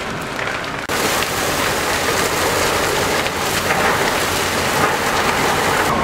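A large building fire burning: a steady, dense hiss and crackle that sets in abruptly about a second in.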